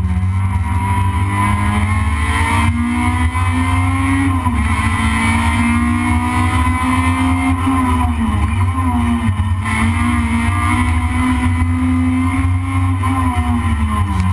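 Toyota Corolla race car's engine heard from inside the cabin under racing load, its pitch holding high and dipping and recovering several times as the driver shifts and lifts off, over a steady low rumble.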